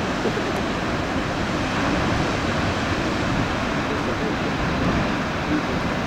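Steady rushing roar of heavy ocean surf mixed with wind noise, with no distinct events.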